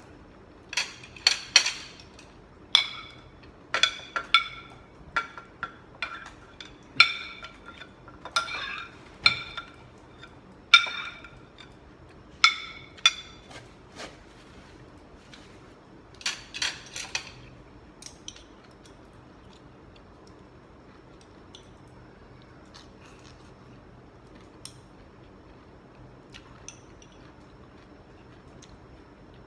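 Metal cutlery clinking against a dish that rings with the same few clear tones at each strike: a busy run of quick strikes, some in pairs, through the first seventeen seconds or so, then only faint occasional ticks.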